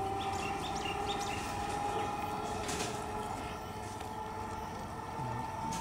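Electric multiple unit local train running past with a steady whine that slowly rises in pitch as it gathers speed, over a low rumble. A few short bird chirps come near the start.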